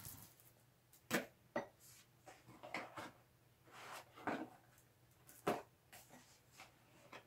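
Soft handling noises: a few short, irregular knocks and rustles as a paper manual is laid down and the foam liner of a plastic tool case is pressed and handled.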